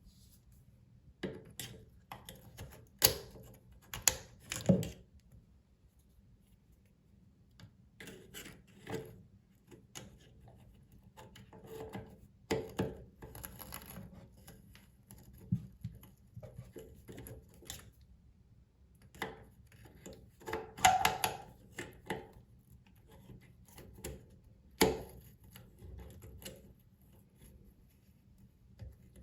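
Pliers and faucet parts clicking, knocking and scraping as a faucet cartridge is tightened: irregular small clicks and short rasps, with a few sharper knocks.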